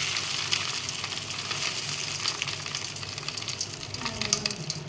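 Dry puffed-rice snack mix (bhuja) poured onto a stainless steel plate: a dense crackling rustle of many small, light pieces landing on the metal and on each other.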